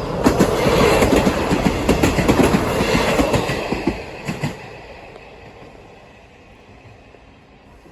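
Train passing fast over a level crossing, its wheels clattering rhythmically over the rail joints. It is loud for about four seconds, then fades away as it recedes.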